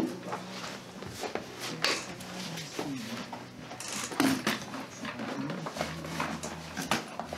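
Irregular clicks, knocks and rustling of ski boot gear being handled by hand, over a low steady hum.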